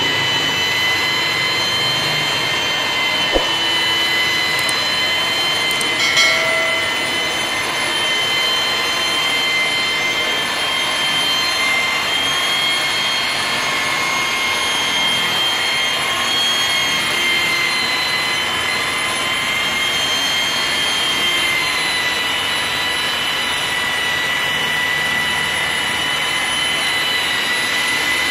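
Electric angle-grinder-type polisher with a felt pad running steadily on glass, a constant high whine as the pad buffs polishing compound across the pane. A couple of small knocks about three and six seconds in.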